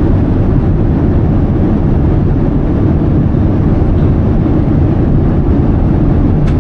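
Steady low roar of an airliner cabin in flight, the engines and airflow heard from a passenger seat. A single faint click comes near the end.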